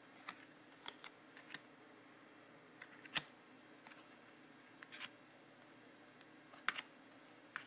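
Trading cards handled and flipped through by hand: faint, irregular clicks and taps of card edges and sleeves, the sharpest about three seconds in and again near the end.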